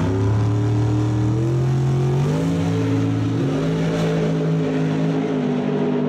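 Drag racing car's engine at full throttle accelerating down the strip, its note climbing in steps about two and three and a half seconds in.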